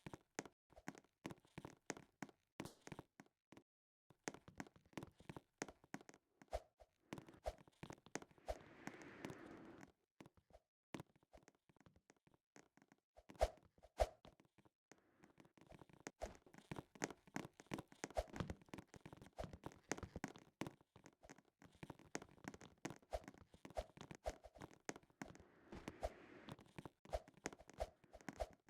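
Hands handling and opening packaging: a steady run of small clicks and taps, with two short spells of rustling or crinkling.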